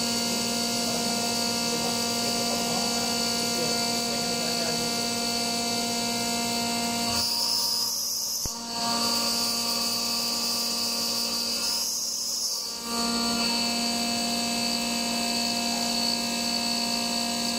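CNC milling machine's spindle and end mill cutting a metal workpiece: a steady machine whine of several pitches. Twice, about seven and twelve seconds in, the whine drops out for about a second, leaving a high hiss.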